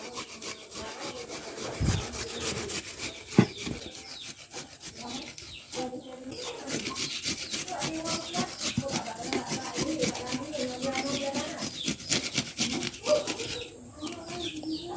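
Garlic cloves being grated by hand on a grater: a fast, steady run of rasping strokes, pausing briefly near the end.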